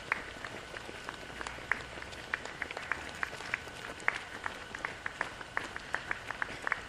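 Running shoes slapping on asphalt as a group of runners passes: many sharp, irregular footfalls, several a second, over steady outdoor hiss.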